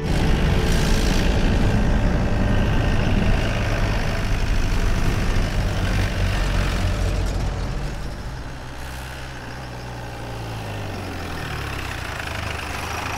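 A low vehicle-engine rumble with a lot of noise, starting suddenly, loudest for the first several seconds and easing off after about eight seconds.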